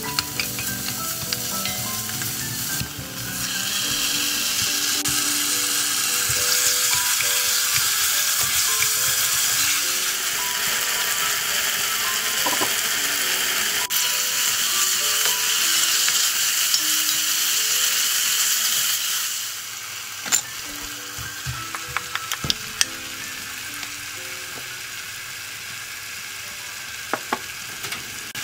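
Green onion and pork sizzling in oil in an enamelled cast-iron pot while being stirred with a wooden spoon. The sizzle grows louder about three seconds in and falls away about two-thirds of the way through, after which there are several sharp knocks and scrapes of the spoon against the pot. Soft background music plays along.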